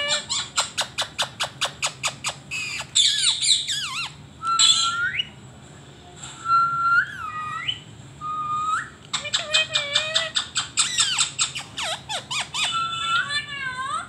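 Indian ringneck parakeet calling. Runs of fast repeated chattering notes are mixed with harsh squawks and short rising whistled notes, and the calling stops suddenly near the end.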